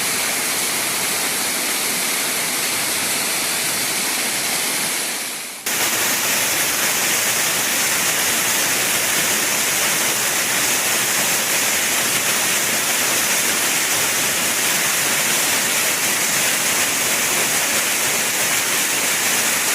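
Waterfall rushing, a steady wash of falling water. About five seconds in it dips briefly, then cuts back in abruptly, a little louder.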